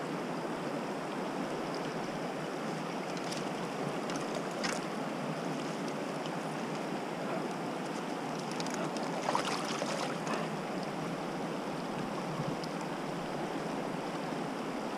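Shallow, rocky mountain river running steadily. A few brief, faint splashes come through as a rainbow trout is handled in a landing net.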